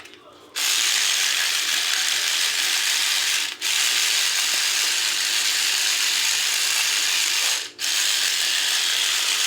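A loud, steady mechanical whirr like a small motor starts about half a second in. It breaks off briefly twice.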